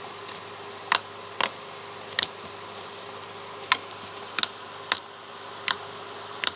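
Fluffy cotton candy slime being squished and stretched, popping with about eight sharp clicks at uneven intervals over a steady background hum.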